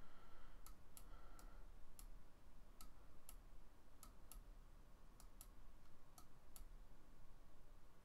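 Computer mouse clicking faintly at an irregular pace, about fifteen short sharp clicks, over a low steady hum.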